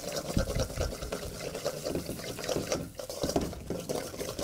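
Halibut fillet searing in a hot, smoking pan: steady sizzling with many small crackling spits.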